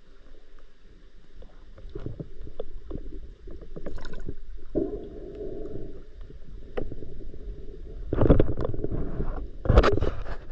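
Muffled underwater noise of a freediver swimming, heard through an action camera's waterproof housing: scattered clicks and knocks, with louder rushing, gurgling water noise in the last two or three seconds.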